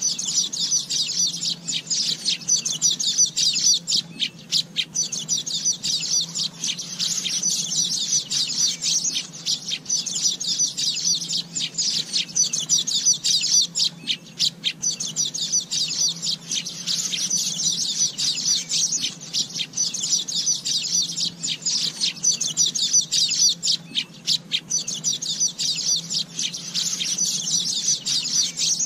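Asian golden weavers chattering: a dense, continuous stream of rapid, high-pitched twittering calls, with a faint low hum underneath.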